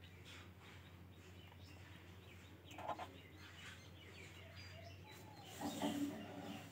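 Faint bird chirps in the background over a low steady hum, with soft scratches of a pen writing on paper.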